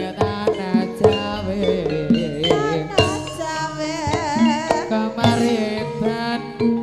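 Javanese gamelan music for an ebeg (kuda lumping) dance: hand-drum strokes over ringing metallophone notes. A voice sings a long line with vibrato around the middle.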